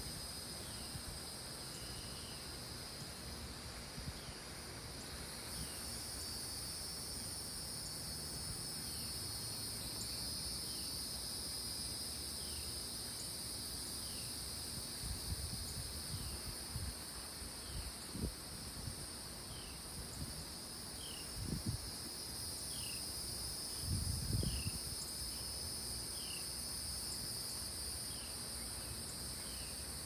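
Chorus of cicadas droning steadily and continuously at a high pitch, with faint short falling chirps about once a second. A few low bumps come through near the middle and about three-quarters of the way in.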